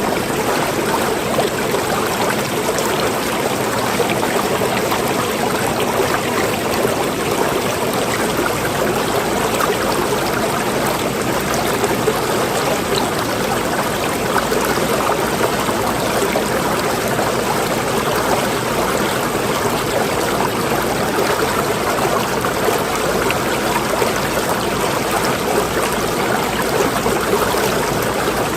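Water running steadily in an unbroken flow, a continuous rushing noise with no pauses or separate splashes.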